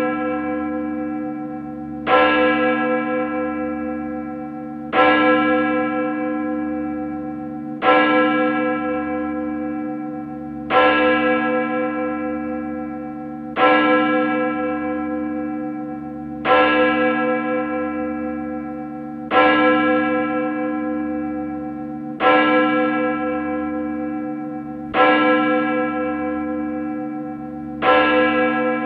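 A single bell tolling slowly, struck about every three seconds at the same pitch, each stroke ringing on and fading until the next.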